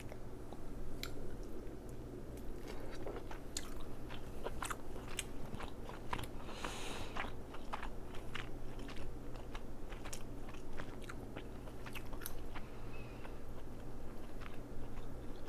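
Close-miked eating of sauced crab meat: wet chewing, lip smacks and scattered sharp clicks, with a brief noisy slurp or rustle about halfway through.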